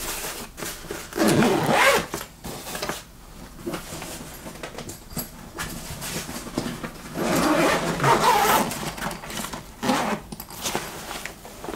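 Zipper being run along a Mountainsmith Hot Box Hauler padded carry bag, two longer rasping runs about a second in and again about seven seconds in, with fabric rustling and handling in between.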